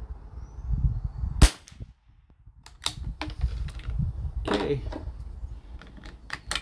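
A single shot from an Anschutz 1761 .22 LR bolt-action rifle, a sharp crack about a second and a half in, followed by several sharp clicks.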